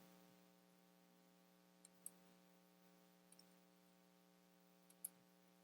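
Near silence: room tone with a faint steady hum and three small clicks, about two, three and a half, and five seconds in.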